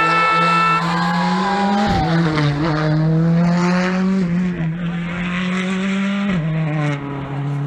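Rally car engine held at high revs as the car comes through the bend, its note stepping down twice with gear changes, about two seconds in and again near the end. A horn blares over it for the first second.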